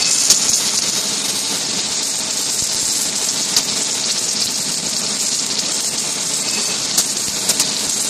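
Submerged arc welding in progress: a steady hiss from the arc burning under granular flux, with a few sharp crackles.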